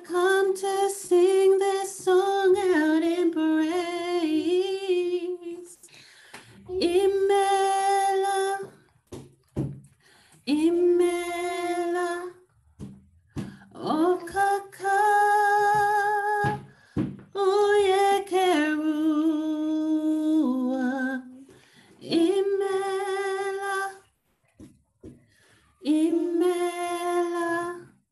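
A woman's unaccompanied voice singing a slow worship melody, holding long, wavering notes in short phrases with brief pauses between them, heard over a video call.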